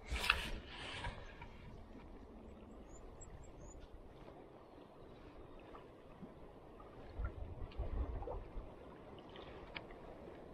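Fly line rasping through the fingers as it is stripped in by hand, a couple of quick pulls in the first second. Then water lapping gently with a light breeze, and a few louder low thumps about seven to eight seconds in.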